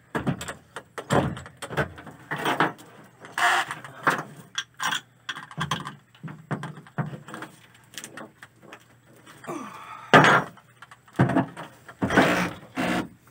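Metal clicks and rattles as the bit is swapped in a corded electric drill's keyed chuck, the chuck turned and tightened by hand. A few louder short bursts come near the end as the drill is set against the truck bed's sheet metal.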